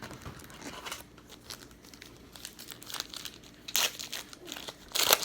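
Plastic trading-card packaging and sleeves crinkling and rustling as cards are handled, with two louder rustles near the end.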